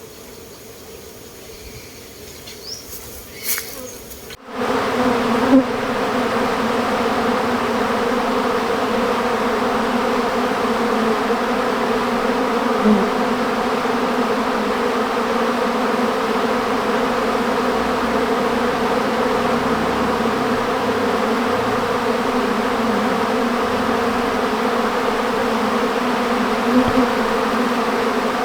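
Honeybees buzzing in large numbers around their hives: a dense, steady hum, fainter at first, then much louder after a sudden jump about four and a half seconds in.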